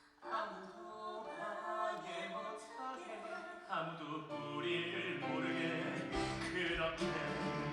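Stage musical music starting up after a brief hush and growing fuller as lower notes come in about four seconds in.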